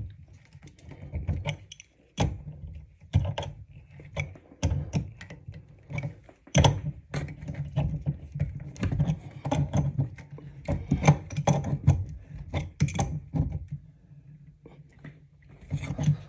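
A wrench clicking and knocking against the metal compression nut and chrome angle stop as a braided toilet supply line is tightened on, a quick irregular run of sharp metallic clicks and clinks that stops about two seconds before the end. A low steady hum runs underneath.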